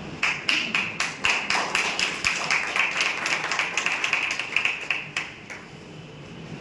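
A small group of people clapping: scattered separate claps at first, thickening into steady applause, then thinning out and stopping after about five seconds.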